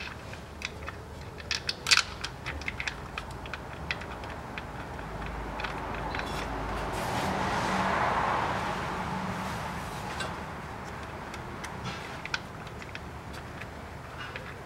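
Scattered light metallic clicks of a hand tool working the bolts of the Haldex coupling's filter cover. Midway a broad rushing noise swells and fades over a few seconds.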